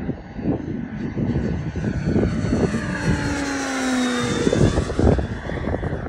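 Kingtech K-30TP model turboprop engine turning a two-blade propeller on a radio-controlled plane flying past: the turbine whine and propeller drone fall in pitch as it passes, about three to four seconds in. Heavy wind buffeting on the microphone.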